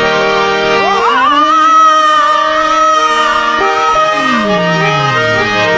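Harmonium holding steady reed chords as a singer slides up into a long, high held note with vibrato about a second in; in the second half a lower line glides downward. Gujarati santvani devotional singing.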